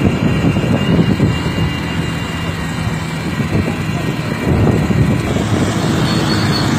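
Motorcycle engine running at road speed, a steady drone mixed with heavy wind rush over the microphone and tyre noise on the wet road.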